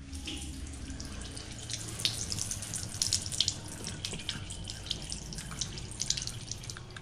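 Water running from a tap and splashing, with many irregular sharp drips and splashes over a steady hiss.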